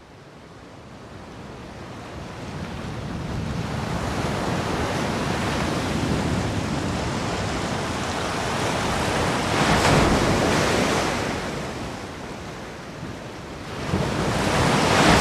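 Rushing noise of sea surf and wind, building up over several seconds to a peak about ten seconds in, then easing. It surges once more near the end and cuts off suddenly.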